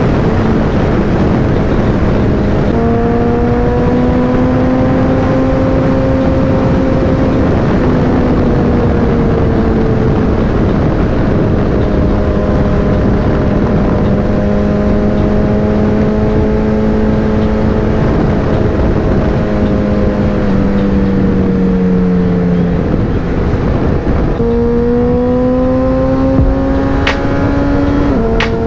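Suzuki Hayabusa's inline-four engine running at highway speed under a heavy rush of wind noise. Its pitch jumps up about three seconds in, sags slowly over the next twenty seconds, rises sharply again near the end, then drops back.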